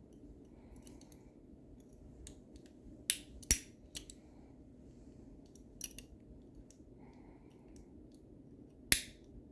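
Steel picks and a turning tool working inside a lever lock, giving a few sharp metallic clicks a second or two apart, the loudest near the end.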